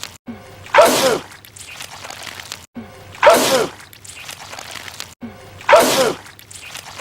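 A man sneezing loudly, three times about two and a half seconds apart. The same sneeze repeats on a loop, each one a short vocal burst followed by a spray of noise, with a brief drop-out in the sound before each.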